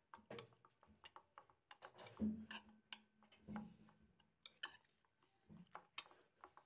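Faint, quick, irregular clicking of a metal utensil against a plastic bowl as eggs are beaten with chopped onion and herbs, with a couple of duller knocks about two and three and a half seconds in.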